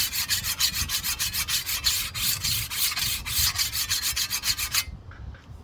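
Hand file stroking along a rusty scythe blade to sharpen the edge: rapid, even rasping strokes that stop shortly before the end.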